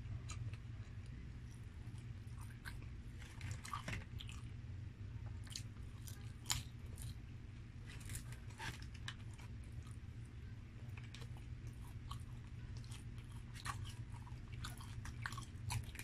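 Close-up eating sounds: chewing and crunching of crispy breaded fried chicken, with scattered sharp crackles, over a steady low hum.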